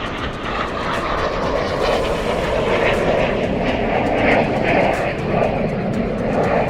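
Boeing 737 MAX 10 jet airliner's CFM LEAP-1B turbofan engines running, a steady rushing roar that grows gradually louder as the aircraft comes closer.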